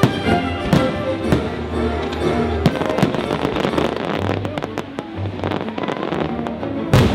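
Aerial fireworks bursting and crackling over a music soundtrack, with sharp bangs, a dense run of crackling about three to four seconds in, and a loud bang near the end.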